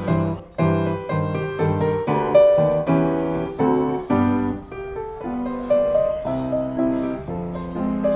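Background music: solo ragtime piano with an even, steady rhythm of struck notes and chords.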